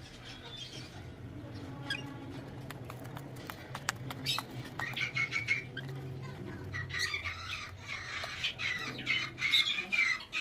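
Pet lovebirds squawking and chattering in quick high calls, getting busier and louder from a few seconds in, with scattered clicks over a steady low hum.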